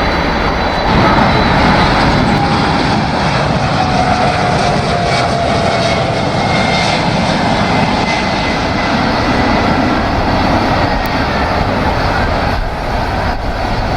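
Boeing 747 jet engines, loud and continuous, as the airliner comes in to land, with a faint whine sliding slightly down in pitch partway through.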